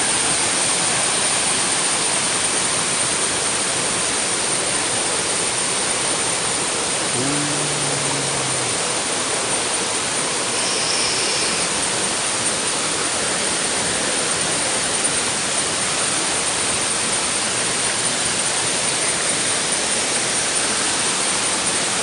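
Steady rush of falling water from Temurun Waterfall, a tall waterfall pouring down a rock face.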